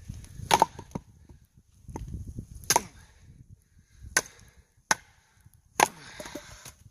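A wooden baton striking the spine of a Wallace Reaper knife, driving the blade through a piece of pine to split it: five sharp knocks, unevenly spaced, with the crack of the wood splitting.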